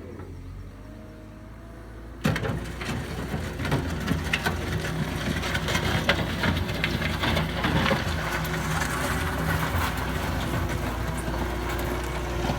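Cat 906H2 compact wheel loader running with a steady low hum, then a sudden clatter about two seconds in and several seconds of irregular crunching and knocking that settles near the end.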